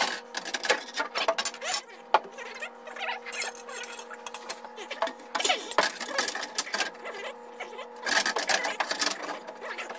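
Irregular metal clinking and rattling as a pickup's gas tank strap and its bolts are handled and worked into place against the underside of the truck, with a busier flurry about five seconds in and again near the end. A steady hum runs underneath.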